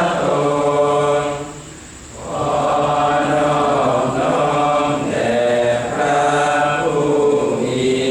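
Buddhist monks chanting together in a steady, sustained recitation, with a brief pause for breath about two seconds in.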